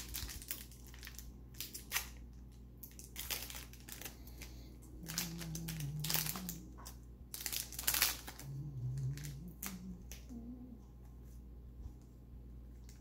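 Crinkling and crackling of a foil trading-card pack wrapper as it is torn open and handled, with the cards being pulled out and thumbed through. The crackles are irregular and thickest in the first eight seconds, then thin out.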